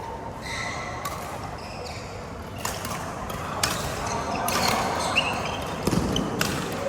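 Badminton rally: rackets striking the shuttlecock in sharp hits, about one a second, over the noise of a sports hall.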